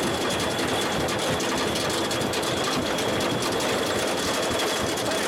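Amusement-park ride running: a steady, fast mechanical rattle and clatter of the ride car on its track, with a thin high whine held throughout.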